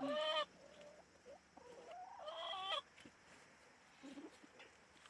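A bird calling twice: a short loud call at the very start, then a longer call that rises in pitch about two seconds in.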